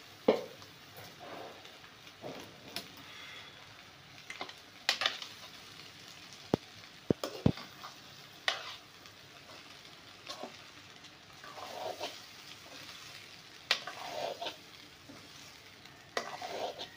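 Metal spatula scraping and knocking against a metal kadai while cooked rice is stirred and tossed into fried vegetables, in irregular strokes every second or two, over a faint frying sizzle.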